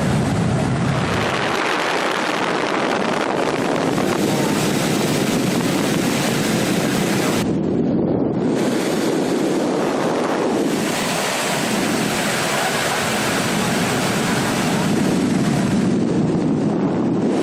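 Continuous rushing wind noise buffeting the microphone, swelling and easing.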